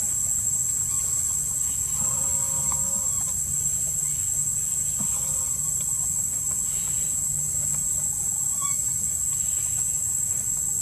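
Insects droning steadily at one high pitch, with a bird giving short calls a few times, several seconds apart.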